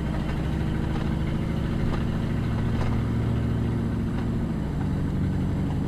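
Car engine and road noise heard from inside the cabin while driving slowly: a steady low hum whose pitch drops slightly about four and a half seconds in.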